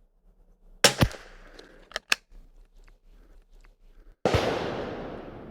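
Kimber .22 LR rifle firing at the range: two sharp cracks about a second in, two light metallic clicks about a second later, then a loud report just past four seconds that rings away slowly.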